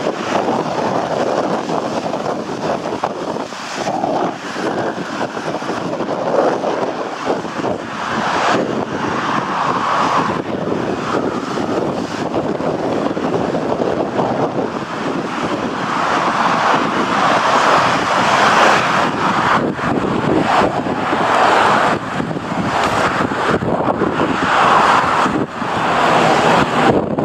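Strong wind buffeting the microphone: a loud, rushing roar that swells and drops in gusts, heavier in the second half.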